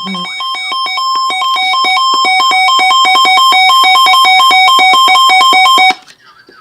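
Weather radio receiver's alert alarm: a rapid beeping that alternates between two pitches, growing steadily louder for about six seconds and then cutting off suddenly. It signals an incoming warning broadcast, here a tornado warning.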